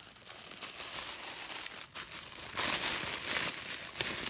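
A small taped gift wrapper being unwrapped by hand: crinkling and tearing, growing louder a little past halfway through.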